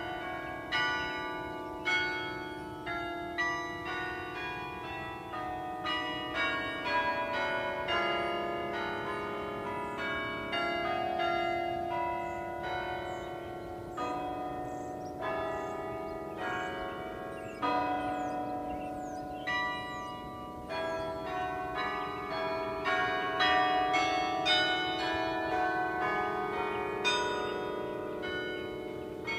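Carillon bells playing a melody: one struck bell note after another, about two a second, each ringing on so that the notes overlap, with low bells sounding under higher ones.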